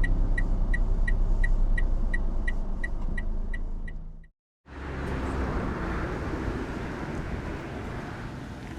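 Car running with a steady low rumble and a fast, even ticking. The sound breaks off about four seconds in, then gives way to a steady rushing wind noise over the low rumble, slowly easing.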